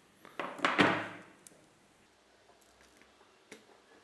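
An Ethernet cable being handled and fitted to the camera's connector: a short scraping rustle about a second in, then a few faint clicks.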